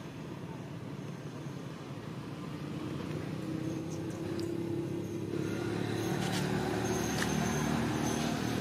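A distant motor engine hum that slowly grows louder, as of a vehicle drawing nearer.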